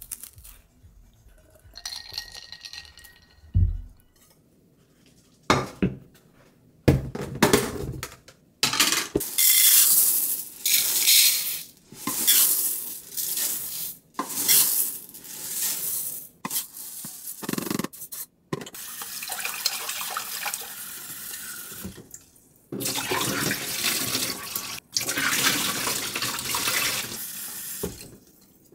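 Dry rice grains poured in several runs from a plastic container into a measuring cup and the rice cooker's inner pot, then tap water running into the pot as the rice is washed. Each run is a steady hiss, broken by short pauses.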